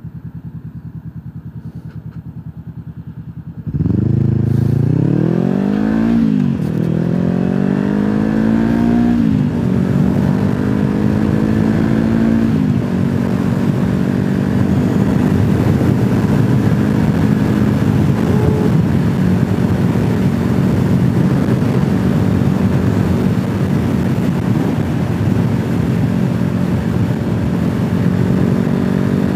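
Motorcycle engine idling with a steady pulse, then opening up about four seconds in and accelerating hard through the gears, its pitch climbing and dropping at three upshifts. It then settles into a steady cruise under a rush of wind noise.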